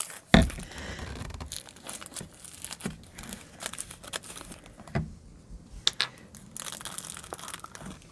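Clear plastic wrapping crinkling and tearing as it is worked off a plastic fragrance-oil bottle, with scattered crackles throughout. A louder knock comes just after the start and another about five seconds in.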